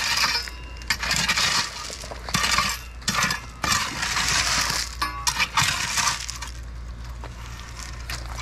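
A rake dragging through loose rocks in repeated strokes, the stones scraping and clinking against each other.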